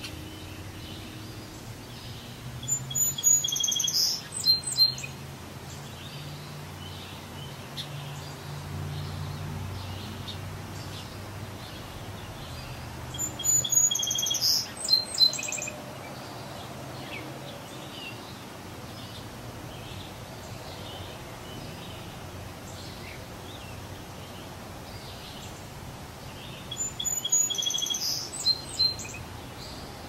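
A songbird sings the same loud, high-pitched phrase three times, about a dozen seconds apart, with fainter chirping from other birds in between.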